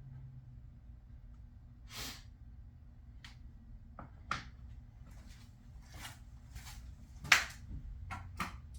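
Scattered light clicks and knocks of die-cast toy cars and track parts being handled between race runs, with one sharper, louder knock about seven seconds in.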